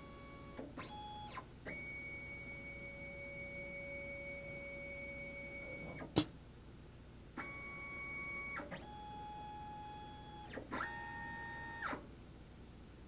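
Stepper motors of a desktop CNC machine whining at steady pitches as the axes move through an automatic tool change, the pitch jumping to a new note with each move. A single sharp click about six seconds in, as the spindle comes down on a tool holder in the rack.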